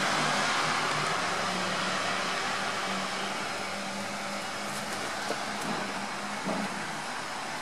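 Steady rushing background noise with a faint low hum underneath, and a few small clicks about five to six and a half seconds in.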